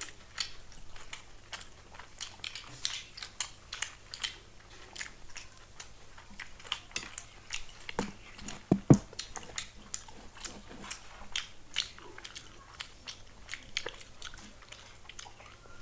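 People chewing and biting into chicken satay, a steady run of short wet mouth clicks and crunches. There are a couple of louder knocks about eight and nine seconds in.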